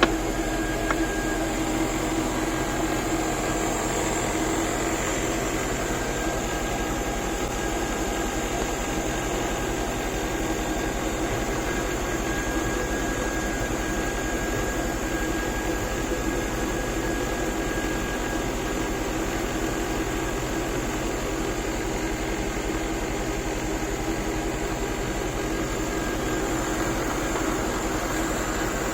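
Mercedes GL450's V8 engine idling steadily, an even, unchanging hum.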